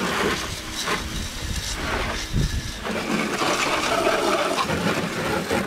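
Water jet from a garden-hose spray nozzle splashing against a car's body and the pavement, a steady rushing spray as the soap foam is rinsed off.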